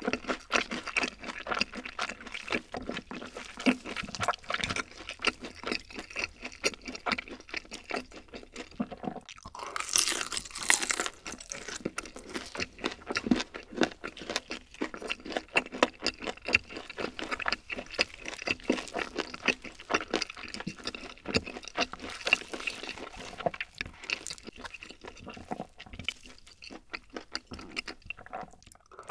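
Close-miked chewing of crispy honey-glazed fried chicken: a continuous run of small crunches and wet mouth sounds, with a brief louder burst about ten seconds in.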